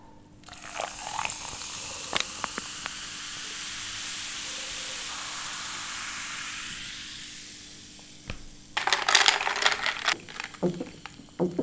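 Cola fizzing with a steady high hiss as it is poured into a glass, with a few light clicks; the fizz fades out after about seven seconds. About nine seconds in comes a louder noisy sip through a straw.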